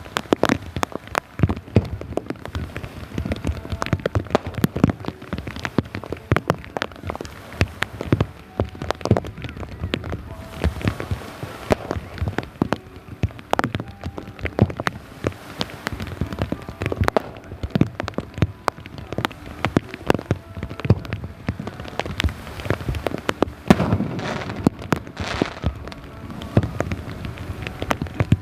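Heavy rain: a dense patter of sharp drops striking close to the microphone, with a few fireworks bursts in the last few seconds.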